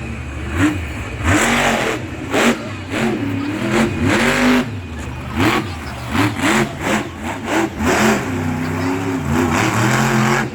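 Monster truck engine revving hard and repeatedly, its pitch swooping up and down in quick bursts of throttle.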